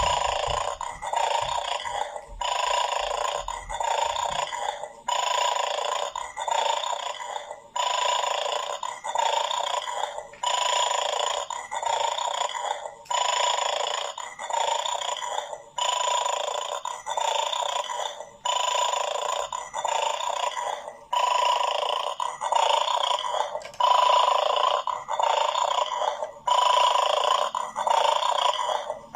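A pet making repeated noises over its favourite food, in even pulses about once a second.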